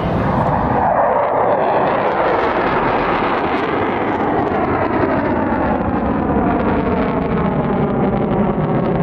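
Jet aircraft passing overhead: a loud, steady rush whose bands slide slowly downward in pitch as it goes by.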